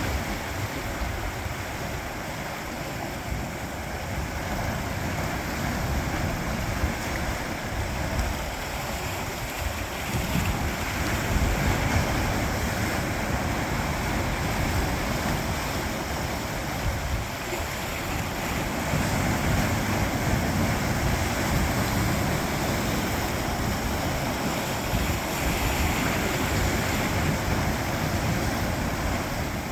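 Sea waves washing against coastal rocks, a continuous rush of surf that swells and eases. Wind buffets the microphone.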